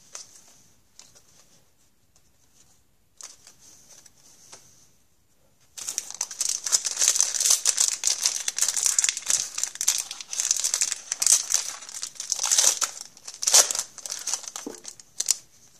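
Faint handling rustles, then about six seconds in a foil hockey card pack wrapper crinkling loudly and continuously as it is opened and crumpled, for about ten seconds.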